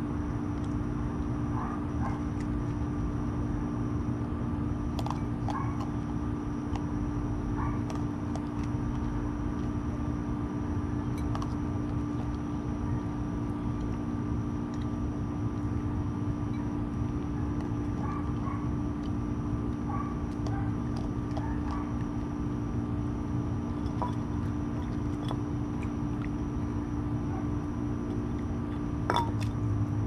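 Raccoon eating dry kibble from a bowl, with scattered short crunches and clicks and one sharper knock near the end, over a steady low mechanical hum.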